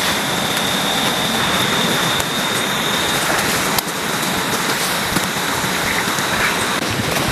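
Heavy rain falling steadily, a dense even hiss with the odd sharp drop tick, and a thin steady high tone running through it.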